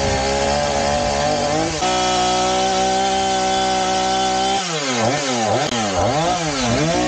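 Chainsaw engine running at high speed, its pitch held steady with a small step about two seconds in. Near the end the pitch dips and climbs back about four times in quick succession, then steadies again.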